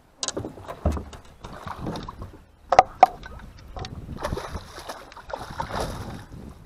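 Knocks and clatter around a small fishing boat with water sloshing and splashing, while a fish is being fought or landed. Two sharp, loud knocks come about three seconds in.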